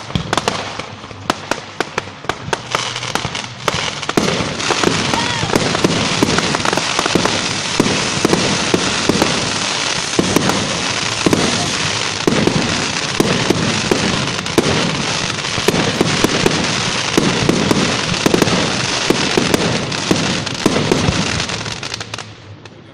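Fireworks going off in a dense run of sharp crackles and bangs. From about four seconds in, heavier pops come in quick succession. It all dies away near the end.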